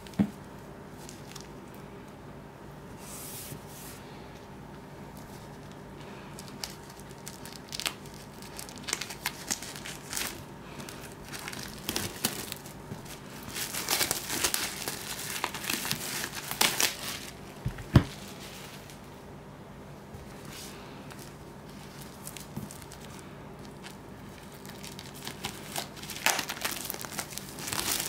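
Clear plastic shrink wrap being torn and peeled off a book, crinkling in irregular bursts that are busiest about halfway through and again near the end. A single sharp knock a little past halfway.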